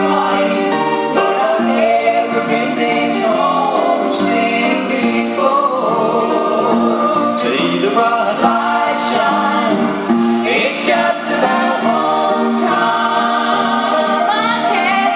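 Gospel music: a group of voices singing together in harmony, steady throughout.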